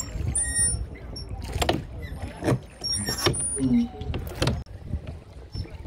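Wooden rowing boat being rowed: oars dipping and splashing and knocking in their rowlocks several times, over a steady low rumble of wind on the microphone.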